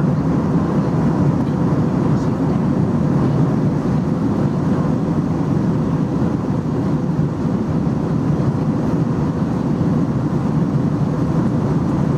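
Steady cabin drone inside an Airbus A321-211 in flight, from its CFM56 engines and the airflow over the fuselage: a deep, even rush with faint steady tones on top.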